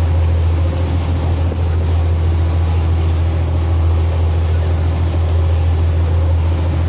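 Boat engine running steadily under way, a constant low drone, with wind rushing over the microphone.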